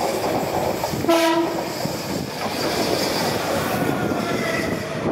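Renfe Civia electric commuter train sounds one short horn blast about a second in, then runs close past with a steady rumble of wheels on rail.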